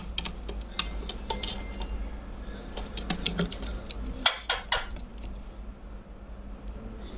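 Irregular light clicking and tapping, several clicks a second, with a few louder knocks about halfway through.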